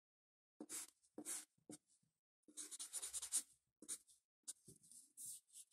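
Felt-tip permanent marker drawing on paper: faint, short scratchy strokes, several in quick succession around the middle.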